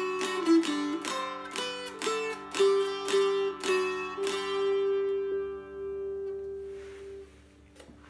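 Mountain dulcimer of poplar and northern cherry with a 25-inch scale, strung double-melody, strummed: quick strummed notes over a steady drone close the tune about four seconds in on a final note that rings out and dies away over about three seconds.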